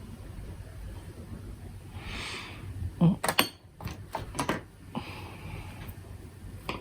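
Makeup being handled at a desk: a soft brushing swish, then a quick run of sharp clicks and taps between about three and four and a half seconds in, then another soft swish.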